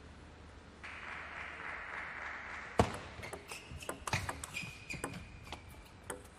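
Table tennis ball clicking back and forth between bats and table in a fast rally, starting with a sharp crack about three seconds in and then several hits a second. A brief high squeak from shoes on the court floor near the middle.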